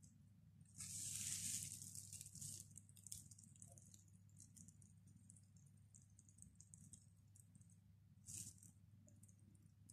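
Faint crinkling of a plastic freezer bag squeezed in the hand while piping cream. It comes once for a second or two about a second in and again briefly near the end, over a low steady hum.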